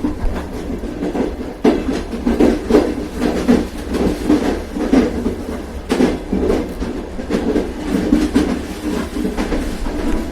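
Train running on rails: a steady rumble with irregular knocks and clacks from the wheels and carriage, two of them sharper about two seconds and six seconds in.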